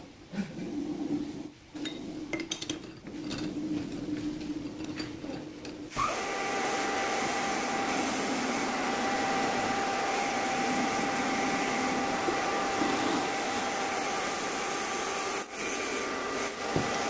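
Irregular knocks and scrapes as a metal bar is handled at a lathe chuck, then about six seconds in the metal lathe starts and runs steadily with a whine while its cutting tool faces the end of the spinning bar.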